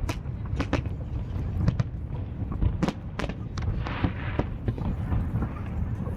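Aerial fireworks going off: a rapid string of sharp bangs and pops over a continuous low rumble.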